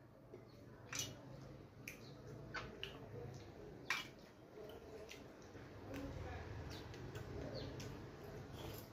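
Eating by hand from a steel plate: irregular wet mouth smacks and clicks while chewing, with fingers working rice on the plate, the sharpest click about four seconds in.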